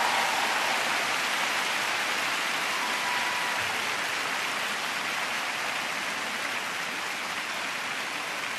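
Large arena crowd applauding, a dense even clapping that eases off slightly.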